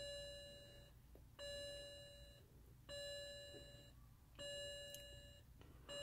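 A car's warning gong chiming five times, about once every one and a half seconds, each ring a clear tone that fades over about a second. It comes from the 2007 BMW 335i with its key in the ignition.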